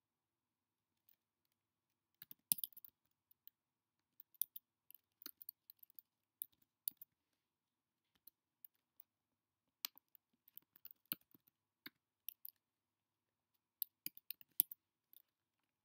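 Typing on a computer keyboard: irregular runs of light key clicks in short bursts, with a pause of a second or two midway.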